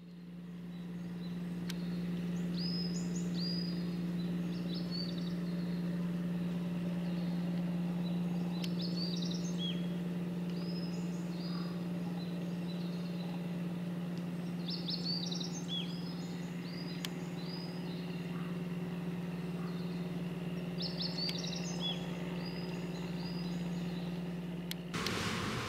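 Steady low drone of a passing cargo ship's engine, with a songbird singing short groups of chirping notes over it every few seconds. In the last second it cuts to a louder rushing noise.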